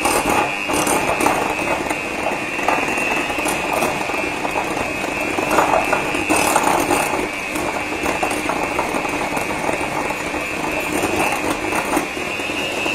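Electric hand mixer running steadily with a constant high whine, its beaters rattling as they shred cooked chicken in a bowl. It switches off at the very end.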